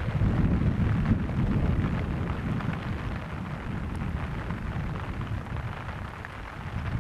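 Steam locomotive working a train at a distance, its exhaust heard as a low, steady rumble without distinct beats, a little louder in the first two seconds.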